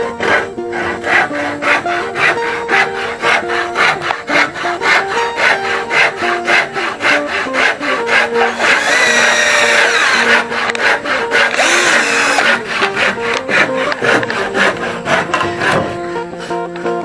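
Cordless drill driving a screw into a wooden board, its motor running for about four seconds about halfway through, over strummed ukulele music with a steady beat.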